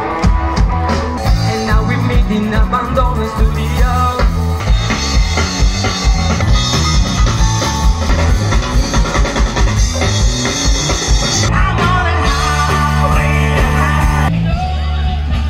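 Live rock band playing: a drum kit keeping a steady beat, with guitars and a singer. The music changes abruptly about a second before the end.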